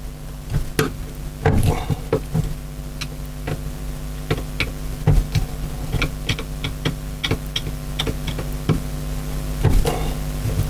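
Scattered small clicks and taps of metal parts and tools being handled during a Quadrajet carburettor rebuild, over a steady low electrical hum.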